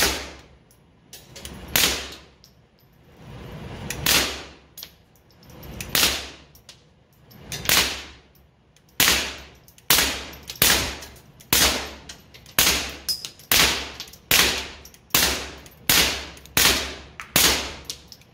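Suppressed .22 LR shots from a Taurus TX22 pistol fitted with a SilencerCo Sparrow suppressor, each a sharp crack with a brief ring. The first few come about two seconds apart, then the rest follow in a steady string of about one and a half shots a second, around twenty rounds in all.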